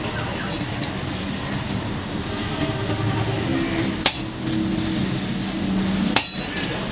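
Two sharp metallic clinks of iron striking iron, about two seconds apart, with a few lighter clinks in the first second, over a steady workshop hum.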